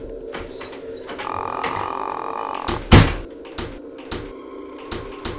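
A loud thump about three seconds in and several lighter knocks and clicks over a steady low hum.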